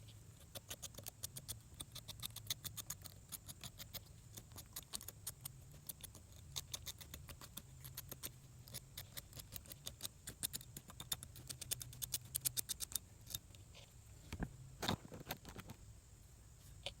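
Rapid, irregular light clicks and scratches of hands working a stripped automotive wire and its copper strands, thinning out after about 13 seconds with a couple of louder ticks near the end.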